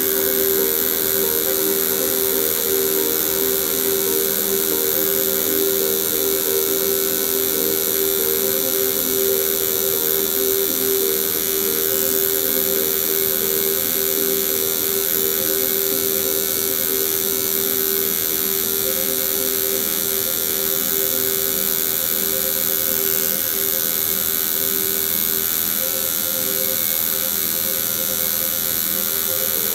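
Electric tattoo machine running with a steady buzz while in use on skin.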